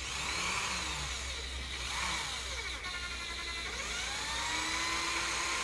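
Corded electric drill running, its pitch rising and falling as the trigger is squeezed and eased. The bit is pressed into hardwood but barely cuts because the drill is set in reverse.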